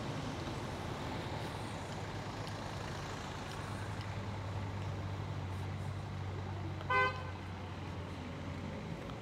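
Street traffic: a vehicle engine running with a steady low hum, and a single short horn toot about seven seconds in.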